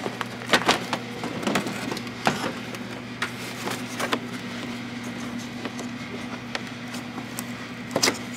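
Sharp plastic clicks and knocks from a car's headlight housing and its clips being worked loose by hand, several in quick succession early on and one sharp click near the end, over a steady low hum.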